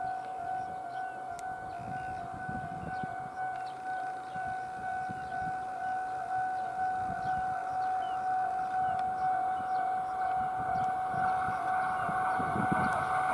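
Railway level-crossing alarm ringing as a steady repeated tone. Under it, the rumble of an approaching Tobu 70000-series electric train grows louder near the end.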